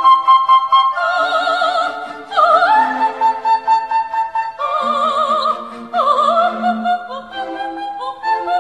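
Operatic soprano singing with wide vibrato over an orchestral accompaniment, in short phrases that each begin with an upward scoop.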